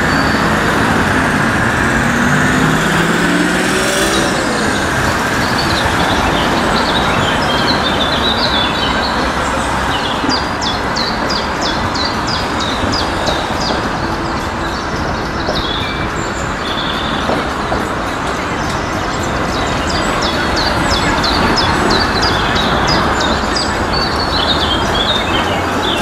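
Street traffic with cars and trams passing, a steady rush of road noise. A car engine rises in pitch in the first few seconds, and birds chirp from about ten seconds in.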